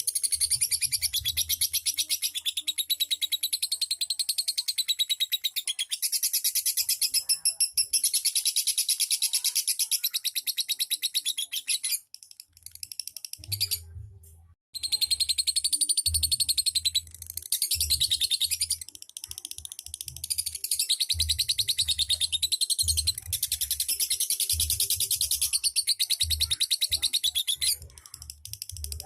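Lovebird singing in long, very rapid, high-pitched chattering trills (the ngekek style), with a short break about halfway. Low rhythmic thumps come in under it in the second half.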